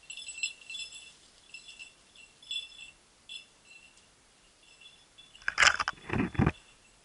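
Hunting dog's collar bell jingling in irregular bursts as the dog moves through cover out of sight. About five and a half seconds in, bare branches scrape past the microphone for about a second.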